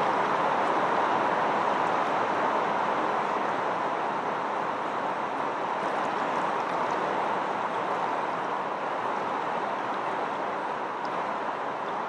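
A steady, even rushing noise with nothing standing out of it.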